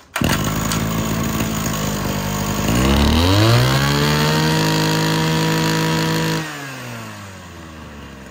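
Two-stroke engine of a used TA33 brush cutter (36 mm bore) starting on a pull and idling. About three seconds in it revs up to a high steady speed. It holds there for about three seconds, then drops back toward idle when the throttle is released.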